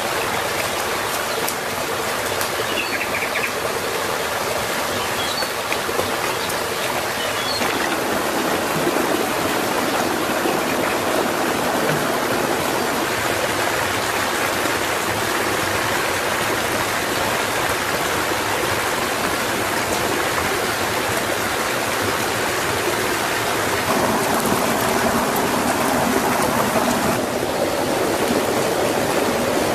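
Shallow rocky stream running steadily over stones, a continuous rush of water that fills out slightly about eight seconds in and again near the end.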